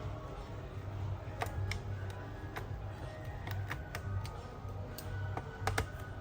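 Irregular sharp clicks and taps of a screwdriver and small screws against a laptop's plastic bottom case, about ten in all, over faint background music.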